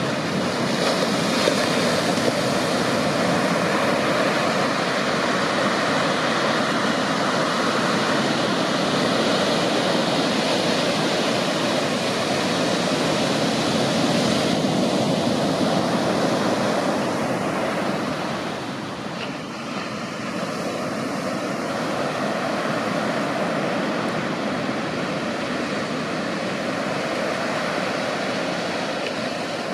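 Ocean surf: waves breaking and washing up a sandy beach, a steady rushing noise that eases briefly about two-thirds of the way in.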